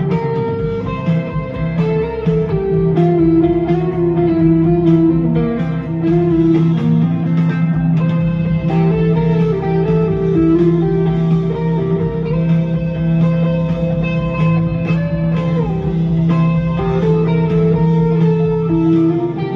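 Semi-hollow-body electric guitar playing a lead solo, a melodic line with bent and sliding notes, over a steady held low note.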